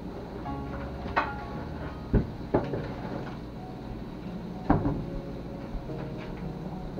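Kitchen cupboard doors and crockery knocking and clattering as a ceramic casserole dish is fetched: four sharp knocks, the loudest about two seconds in and again near five seconds.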